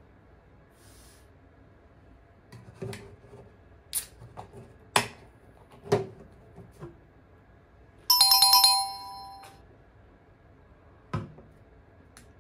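A short electronic chime like a phone ringtone, a rapid run of bright tones lasting about a second and a half, comes about eight seconds in and is the loudest thing heard. Before and after it come a few light knocks and clicks as an aluminium beer can is handled on a wooden table.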